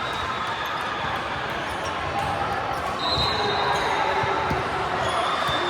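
Indoor volleyball gym din: many voices chattering, with volleyballs thumping on the court floor now and then and a brief high squeak about three seconds in.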